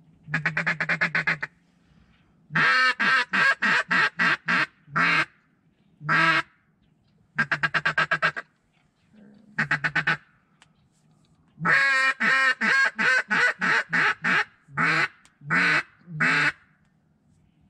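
A mallard duck call blown in runs of loud, quick quacks, with several notes a second in each run and short pauses between runs. Three separate quacks come near the end. The hunters are calling to draw incoming ducks toward the decoys.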